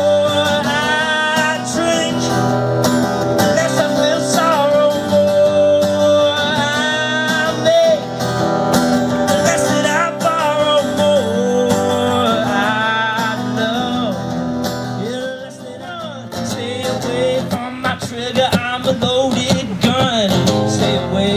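Background music: a guitar-led song with a wavering melodic line over a steady accompaniment. It dips briefly about fifteen seconds in, then comes back fuller with a stronger beat.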